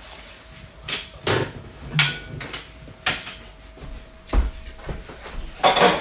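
A series of separate sharp knocks and clatters, roughly a second apart, with a longer rustling scrape near the end, as things are handled and moved about.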